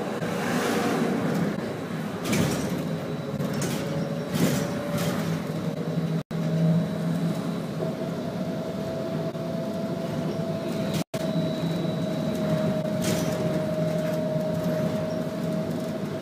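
Cabin of a moving BKM 321 trolleybus: the electric drive's steady whine over road noise, with a few short rattles and knocks from the body. The sound cuts out for an instant twice.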